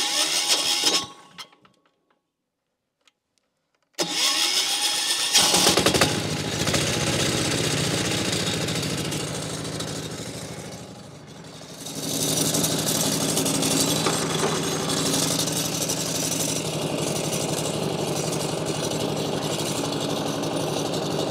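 Portable bandsaw mill's petrol engine. After a brief burst and a silent gap, it starts about four seconds in and runs steadily. Its level dips briefly midway, then it picks up again.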